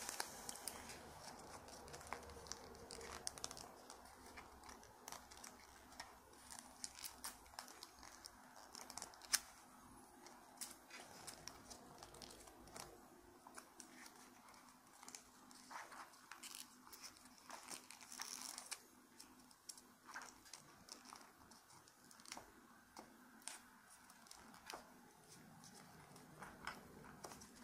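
Pink origami paper being folded and creased by hand, crinkling with many small, irregular crackles and clicks.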